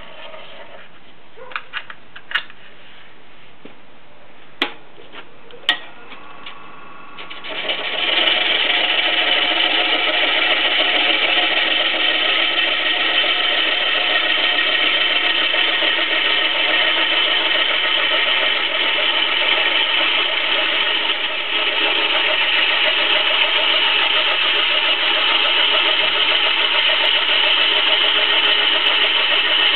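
A few light clicks and knocks, then about seven seconds in a wood lathe comes up to speed and a gouge cuts into the spinning log blank: a loud, steady cutting noise over the lathe's hum that runs on, with a short dip about two-thirds of the way through.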